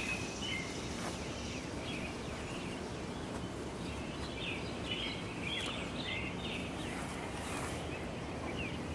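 Outdoor ambience: a steady background hiss with small birds chirping on and off.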